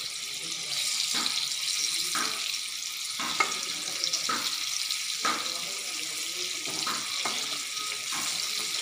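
Battered chicken pieces deep-frying in hot oil: a steady high sizzle with occasional faint crackles.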